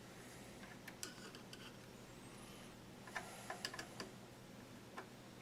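Scattered light clicks and taps of small parts and tools being handled on a workbench, with a quick cluster of them about three seconds in, over a faint steady low hum.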